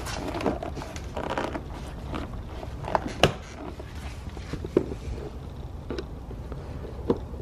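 Phillips screwdriver undoing the screws in the pull-handle recess of a Cadillac STS inner door panel: scraping and rustling at the start, then scattered small, sharp clicks of metal tool on screw and plastic trim, about five in all.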